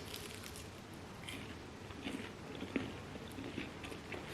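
A person chewing and biting Belgian fries close to the microphone, with soft, scattered small crunches and mouth sounds.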